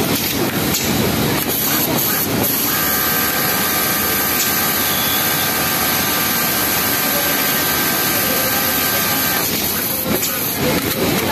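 Industrial Yamato cylinder-bed flatlock sewing machine running, stitching a T-shirt's bottom hem, with a steady high whine from about 3 s in to just before the end. Throughout there is a constant mechanical hiss of factory machinery.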